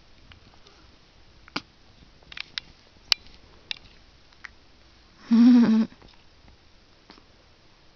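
A baby's short voiced cry, about half a second long, about five seconds in, with a handful of soft clicks scattered before and after.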